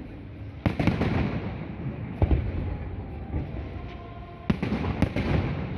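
Aerial fireworks bursting: a pair of sharp bangs under a second in, another a little after two seconds, and another pair between about four and a half and five seconds, over a continuous low rumble and crackle of further shells.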